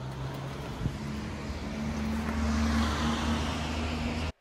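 Tram running along a street: a low rumble with a steady motor hum that steps up in pitch about a second in. There is a single click just before the change, and the sound cuts off abruptly near the end.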